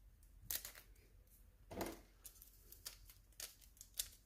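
Faint rustling and light clicking of a new flux-core welding wire spool and its wrapping being handled: a couple of short rustles in the first two seconds, then small clicks near the end.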